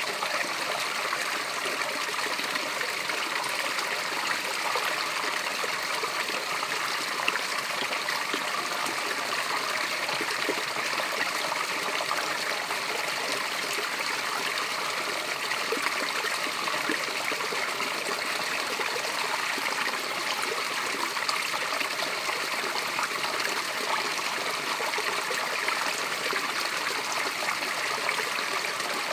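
Small natural waterfall: water pouring and splashing steadily without a break. The sound is bright and hissy, with little deep rumble.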